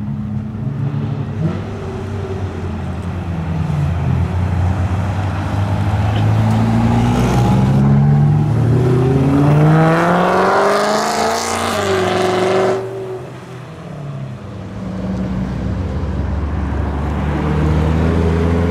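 Supercars driving past in a line: from about six seconds in, one accelerates past with its engine pitch rising steadily to a loud high-revving peak, then the throttle shuts off sharply about thirteen seconds in. Near the end another engine, a Lamborghini Gallardo Spyder's V10, runs at low revs as the car rolls up.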